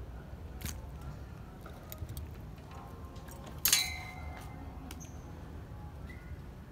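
Metal fishing tools, a lip grip and pliers, clinking as they are handled: small clicks, then one sharp metallic clink with a brief ringing about three and a half seconds in.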